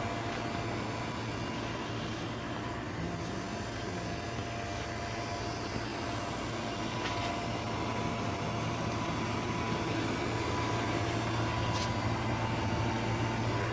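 Air-conditioning unit running: a steady mechanical hum with a constant low drone and faint whining tones that fade in and out.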